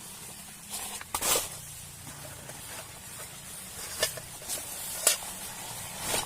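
Steady hiss of falling rain, with a few short, sharp noises over it: the loudest about a second in, then near four and five seconds and again at the end.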